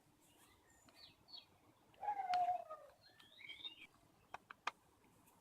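Birds chirping, with one louder falling sound about two seconds in and a few sharp clicks near the end.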